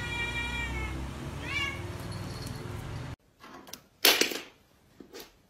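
A cat meowing: one long drawn-out meow, then a short rising meow about a second and a half in. A brief sharp noise follows near four seconds in.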